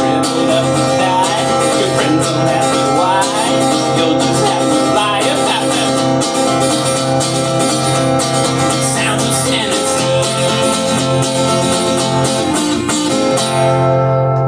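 Acoustic guitar strummed steadily, with a voice singing over it in places, closing a song. The strumming stops near the end and the last chord rings out.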